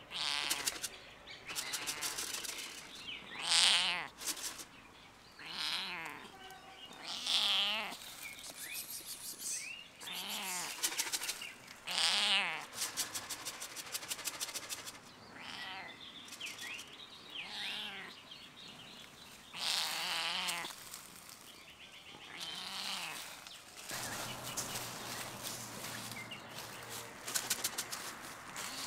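Calico cat meowing at a person again and again: about ten separate meows, each under a second long, with pitch bending up and down.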